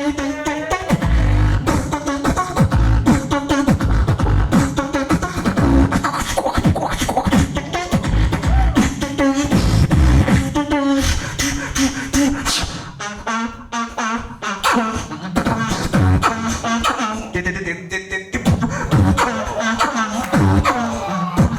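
A beatboxer performing live into a microphone: deep kick-drum hits and sharp snare and hi-hat clicks in a fast rhythm, mixed with pitched vocal bass and melodic sounds, sparser for a few seconds midway.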